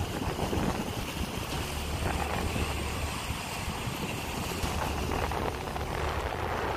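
Strong wind buffeting the microphone, a steady low rumble, over the wash of choppy surf and waves.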